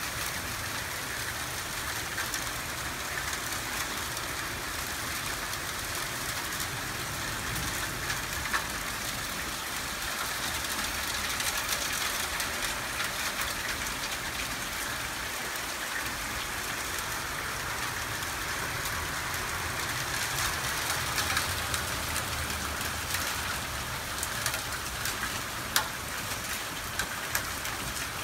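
Heavy rain pouring down in a steady hiss, with a few sharp ticks scattered through it, most of them near the end.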